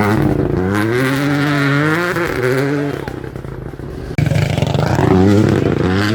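Rally car engine accelerating hard, its pitch climbing in steps through quick upshifts. The sound falls away about three seconds in, then a second loud run of climbing revs starts suddenly about four seconds in.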